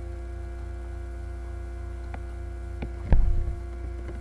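Steady low hum from a poorly working microphone setup, with a few sharp clicks and one loud thump about three seconds in.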